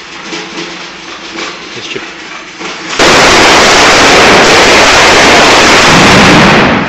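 A string of firecrackers set off in the street, starting suddenly about three seconds in as a dense, continuous crackle of bangs that holds at the very top of the recording's level for about four seconds, then stops near the end.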